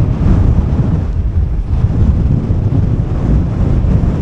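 Strong gusting wind buffeting the microphone: a loud, constant low rumble.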